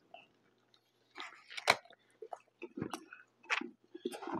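A person chewing a bite of burger close to the microphone: irregular wet mouth clicks and lip smacks, with one sharper smack a little before halfway.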